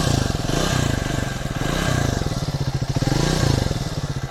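Triumph Speed 400's single-cylinder engine running, blipped up and down in several short revs about a second apart and settling toward idle near the end. It runs without the tappet tick, its valve-clearance shims freshly adjusted.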